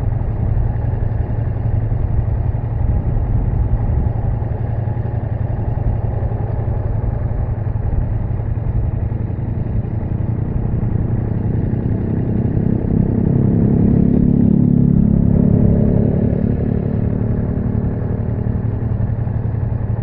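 Ducati Multistrada V4S's V4 engine running on the move, with a steady low rumble. About twelve seconds in the engine note grows louder and clearer for several seconds, then settles back.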